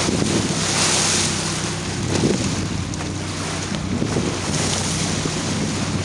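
Moving boat at sea: wind gusting on the microphone and water rushing past the bow, over the steady low hum of the boat's engine.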